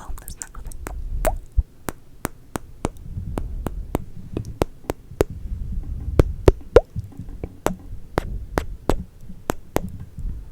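Close-miked wet mouth sounds: a steady run of tongue clicks and kissing pops, about three a second, over a low rumble.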